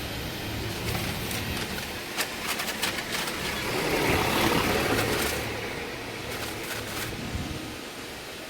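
Street background noise, with a vehicle passing about four seconds in that rises and then fades, and scattered short clicks and rustles.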